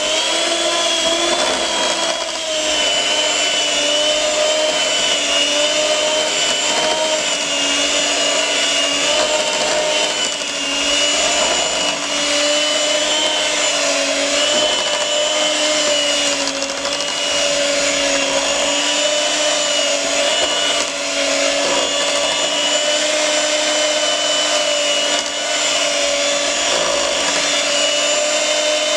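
Electric kitchen mixer running at high speed, beating muffin batter: a steady motor whine with a slightly wavering pitch.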